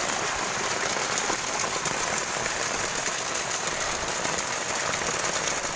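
Steady rain falling on shallow floodwater, an even hiss.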